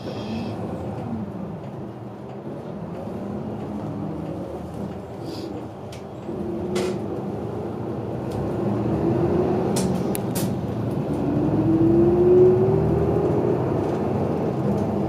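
City bus driving, heard from inside the cabin: a steady engine and road rumble that grows louder about halfway through, with a whine that rises in pitch twice as the bus accelerates. A few short clicks and rattles are heard.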